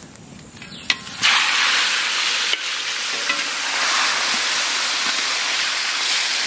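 Turmeric-coated vetki (barramundi) pieces going into hot mustard oil in a large steel wok: a sharp knock just under a second in, then a sudden loud sizzle of frying that holds steady while a spatula stirs the fish.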